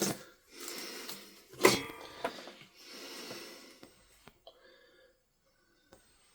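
A few long, breathy puffs of air close to the microphone, with a sharp knock about two seconds in. Then a few faint small clicks.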